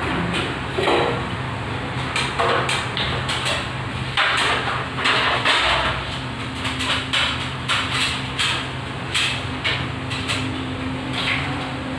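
Hand tools being picked up and handled, giving irregular short clatters and scrapes, over a steady low hum.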